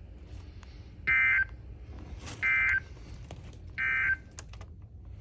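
Emergency Alert System end-of-message data burst on NOAA Weather Radio: three short, buzzy digital bursts about 1.4 seconds apart, signalling that the severe thunderstorm warning message is over. Faint radio hiss lies between the bursts.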